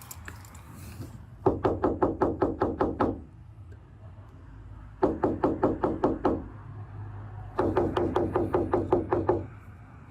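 An electronic alarm sounding in rapid pulses, about seven a second, in repeated bursts of just under two seconds with short pauses between them.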